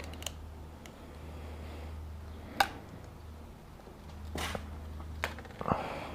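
Hands handling the oil container and filler while getting ready to pour oil into the motorcycle engine: a few sharp clicks and knocks, the loudest about two and a half seconds in, a short rustle about four and a half seconds in, and a steady low hum underneath.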